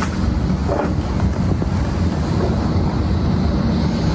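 Hurricane wind and rain, blowing hard and steadily and buffeting the phone's microphone with a heavy low rumble.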